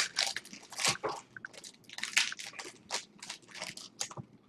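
Trading-card pack wrapper crinkling and rustling in the hands, a string of short, irregular crackles.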